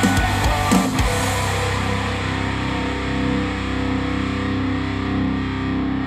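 Death metal music played through KEF Q150 bookshelf speakers driven by a NAD C 338 amplifier: drum hits in the first second, then a held distorted electric guitar chord that slowly dies away.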